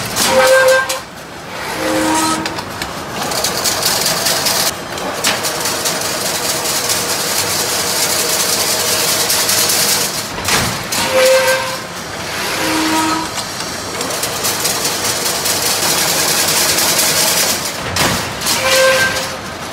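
Automatic chain link fence weaving machine running: a steady, loud mechanical hiss and clatter, with a short group of high pitched tones that comes back about every nine seconds as the machine cycles.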